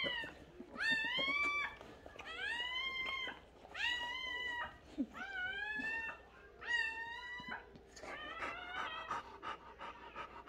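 Newborn puppy crying: six high-pitched cries of about a second each, each rising then holding, repeated every second or so. Near the end they give way to quick panting from the whelping mother dog.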